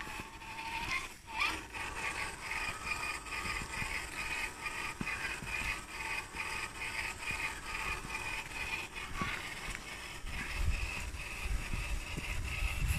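Electric motor and gearbox whine of an Axial SCX10 RC crawler driving, rising in pitch near the start as it speeds up, then holding a steady, pulsing whine. A low rumble comes in during the last couple of seconds.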